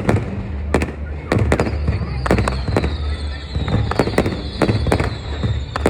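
Aerial fireworks bursting in quick, irregular succession, several bangs a second over a low rumble. From about two seconds in, a high whistle slowly falls in pitch.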